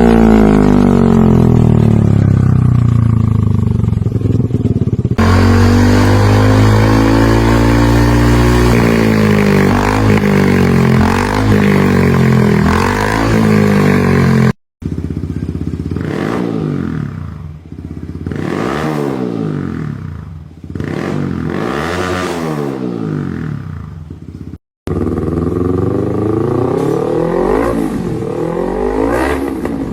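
Motorcycle engine running through a LeoVince GP Corsa Evo Long aftermarket exhaust: revs settling toward idle, then blipped up and down again and again. The sound is cut into separate takes, with two short breaks of silence about halfway and two-thirds of the way through.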